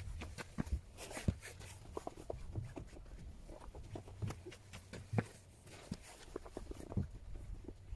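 Irregular crunches and scuffs of fresh snow, from footsteps and from snow being packed and rolled into a snowball.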